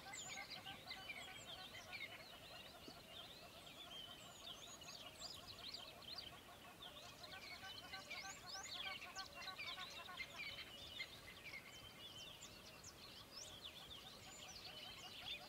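Faint chirping and twittering of birds: many short, quick calls overlapping throughout, with a steady rapid chatter underneath.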